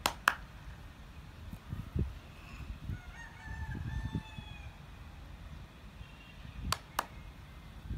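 A rooster crows once, about three seconds in, a single drawn-out call that falls slightly in pitch. Two pairs of sharp clicks come at the start and near the end, over a low rumble.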